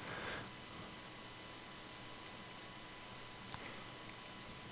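A few faint computer mouse clicks in the second half, over a low steady hiss and electrical hum.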